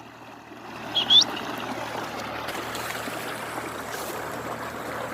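A pet parrot gives one short, rising chirp about a second in, over a steady rushing noise.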